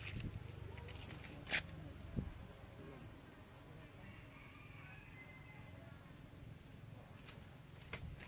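Insects droning steadily at a high pitch, over a low rumble, with two sharp clicks in the first couple of seconds and a faint high squeal near the middle.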